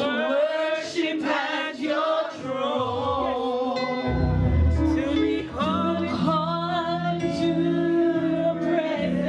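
A woman singing a gospel song into a handheld microphone, amplified through speakers in a hall. About four seconds in, low held accompaniment notes come in beneath her voice.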